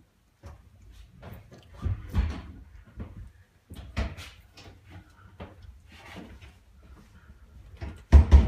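Irregular knocks, bumps and rattles against a toilet cubicle door and walls, with the loudest hits near the end.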